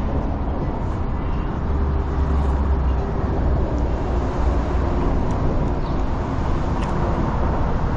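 Steady rumble of road traffic, with the engine tone of a passing vehicle faintly showing through over the first few seconds.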